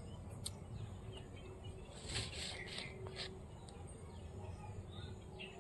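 Small birds chirping faintly over a low, steady rumble, with a brief run of rustling noise about two seconds in.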